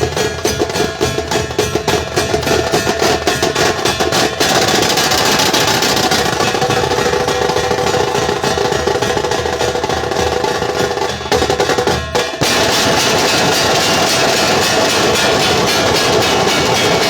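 Dhol-tasha troupe playing: big barrel dhol drums and sharp tasha drums beaten in a fast, dense rhythm, with a brief dip about eleven seconds in.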